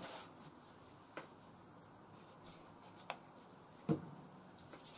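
A few short clicks and knocks of handling over a quiet background, the loudest about four seconds in, as a plastic squeeze bottle is picked up and water is dripped onto a micromesh strop.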